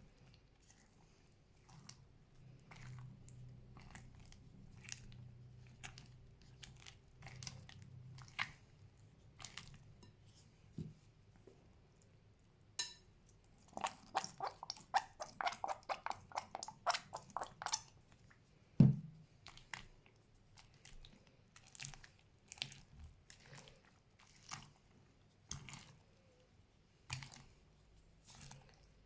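Hands squeezing and poking fluffy slime: scattered small clicks and crackles, a dense run of crackling a little past the middle, then one louder thump.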